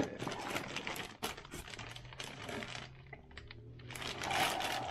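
Rustling and quick, irregular clicking as the packaging and wiring of a Holley Terminator X EFI harness kit are handled during unpacking, with a louder rustle about four seconds in.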